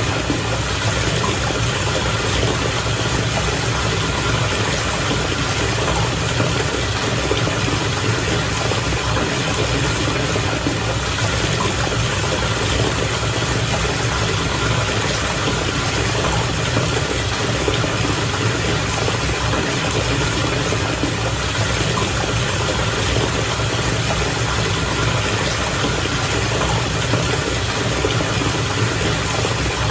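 Bathwater bubbling and churning steadily, with a low even hum underneath.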